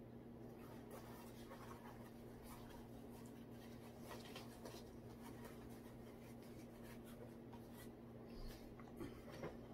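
Faint handling noise from a spinning reel being wrapped in a cloth reel cover: light rustling and small clicks scattered through, over a steady low hum.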